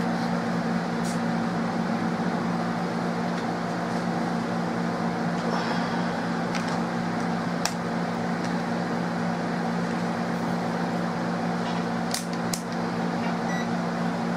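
Steady mechanical hum with a low drone, the sound of a running motor such as a fan or air conditioner. A few faint clicks and taps sound about halfway through and again near the end.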